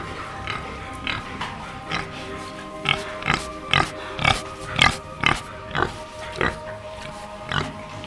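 A pig grunting in a run of short, sharp grunts, about two a second, loudest in the middle of the stretch.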